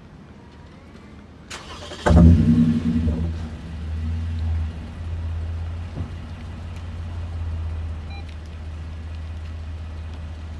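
Toyota Vellfire 30-series engine started through an aftermarket Noblesse centre and rear-piece muffler exhaust: about two seconds in it catches with a loud flare, then settles into a steady, low idle.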